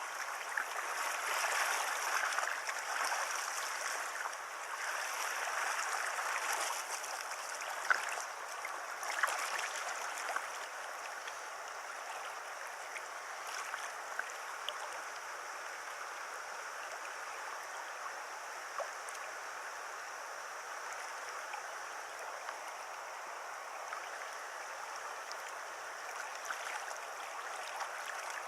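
River water rushing and rippling over a stony bed, a steady hiss that is a little louder in the first ten seconds, with a couple of faint clicks about eight and nine seconds in.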